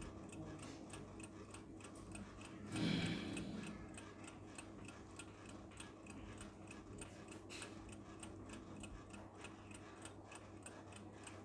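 Faint, even ticking, about four ticks a second, over a steady low hum; a brief rustle about three seconds in.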